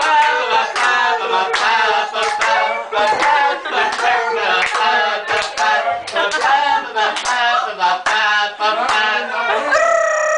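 Several voices singing a tune together while hands beat time with sharp slaps or claps, about two a second. Near the end the voices hold one long note.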